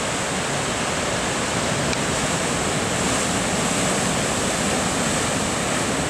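Heavy ocean surf: big swells breaking and crashing against shoreline rocks, a continuous roar of churning water with wind on the microphone.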